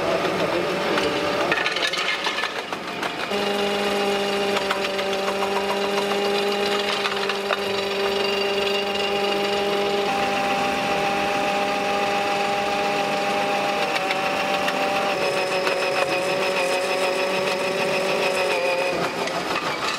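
1/16-scale RC Supershark jaw crusher model running under load: a steady motor hum that sets in about three seconds in and shifts slightly in pitch now and then, over a dense rattle of stones being fed through and crushed.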